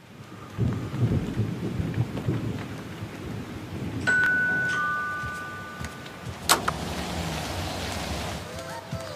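Thunder rumbling over rain. About four seconds in, two held chime tones ring out, one just after the other, and a sharp click comes shortly before the end.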